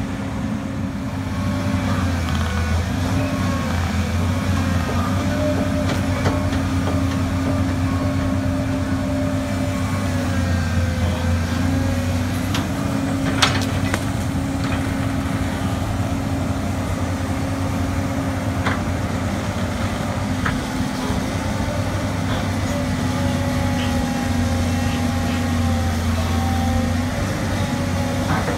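Diesel engines of hydraulic crawler excavators running steadily, the pitch sagging and recovering now and then as the machines take load. Short knocks and cracks come through at times, the sharpest about thirteen seconds in.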